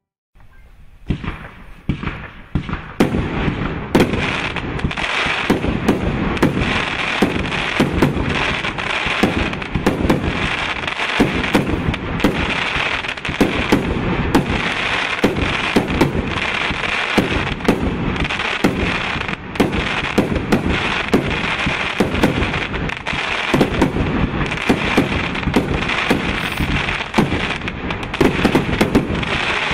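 Pyramatic 152-shot F3 compound firework cake firing its 30 mm shots in rapid succession, several sharp launches and bursts a second, starting just after a moment of silence at the outset.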